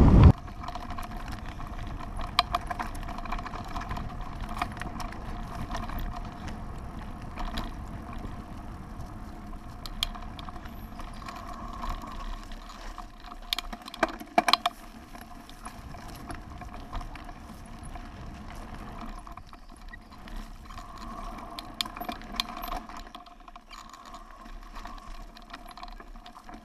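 Mountain bike ridden fast along a bumpy dirt singletrack: chain and parts clicking and rattling over the bumps over a steady hiss of tyres and wind, with a few sharper knocks around the middle.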